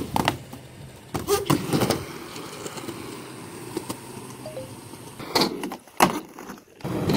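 Skateboard wheels rolling on concrete, broken by several sharp clacks of the board hitting the ramps and ground.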